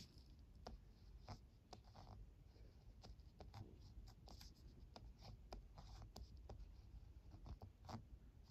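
Ballpoint pen writing a kanji on paper: a faint run of short scratches and ticks as each pen stroke starts, drags and lifts.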